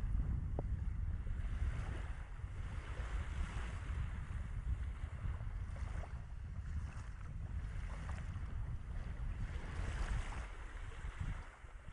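Wind buffeting the camera microphone in a heavy, uneven rumble, over the hiss of small sea waves lapping in shallow water. The wind eases near the end.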